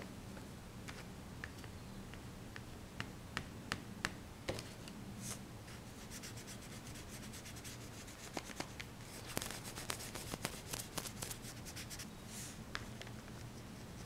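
Scattered light clicks and rubbing or scratching sounds, with a quick run of many clicks a little past the middle, over a faint steady low hum.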